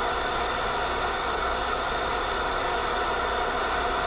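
Steady hiss of static from a CB radio receiver on an open channel with no one transmitting, the band noise rising as skip comes back in.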